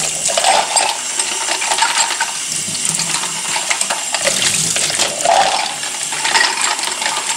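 Tap water running into a stainless steel sink while small metal espresso machine parts are rinsed under it, clinking against each other and the sink, washing off citric acid cleaner.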